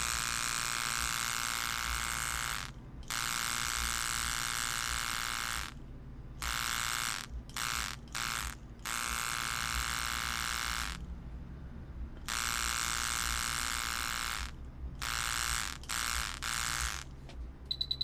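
Electric tattoo machine buzzing in runs of a few seconds that stop and start again, with a cluster of short bursts about midway, during the touch-up stage of the tattoo.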